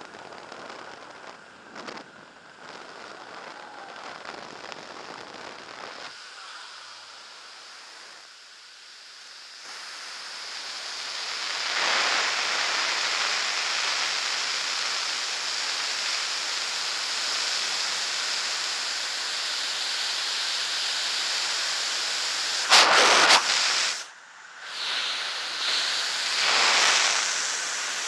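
Freefall wind rushing over a skydiver's camera microphone: a quieter hiss just after the exit from the plane that builds over the first ten seconds or so as the fall speeds up, then a steady loud rush, with a few sharp louder buffets near the end. A faint steady tone is heard under it for the first few seconds and fades out.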